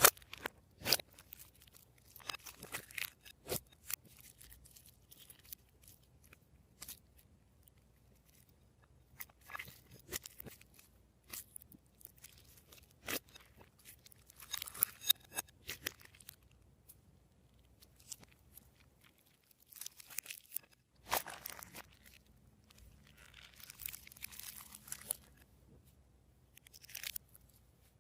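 Glossy slime being pressed, stretched and folded by hand: irregular sticky clicks and crackling pops, with denser stretches of crackle, separated by quiet pauses.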